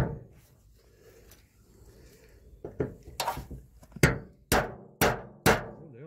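Hammer driving a nail through metal sheeting: one sharp blow at the start, then after a pause of over two seconds a run of blows, about two a second near the end, each with a short metallic ring.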